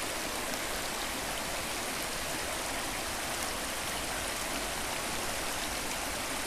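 Shallow, rocky trout stream running over stones and small riffles: a steady rush of water.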